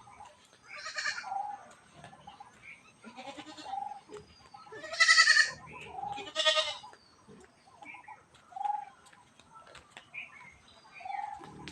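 Farm animals calling: four loud, harsh pitched calls, the loudest about five seconds in, over a soft short call that repeats every couple of seconds.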